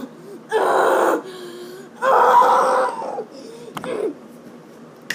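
Two loud rough growls, the first short and the second nearly a second long, with a few light clicks and knocks after them.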